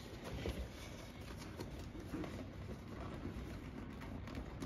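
Faint rustling and soft scraping of a flexible wire-reinforced duct hose being handled and pushed onto a laser cutter's exhaust port, over a low steady hum.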